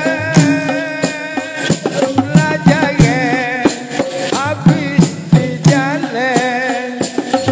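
Dikir barat ensemble playing an instrumental passage: hand drums keep a steady beat with a shaker rattling along, under a wavering melody line.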